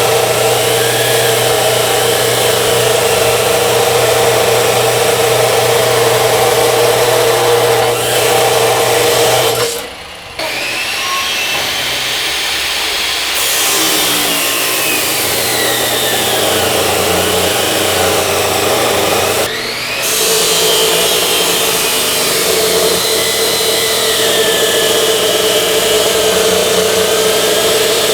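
Electric metal-cutting circular saw running and cutting metal: a loud, steady grinding noise over a hum, with a whine that rises and falls. The sound drops off briefly about ten seconds in and again near twenty seconds.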